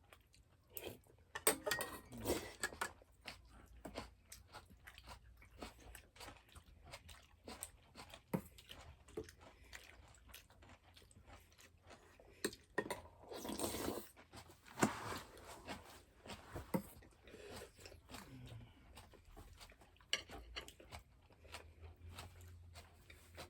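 A person chewing and crunching food up close: a run of irregular crunches and small clicks, with louder crunching bursts a couple of seconds in and again around the middle.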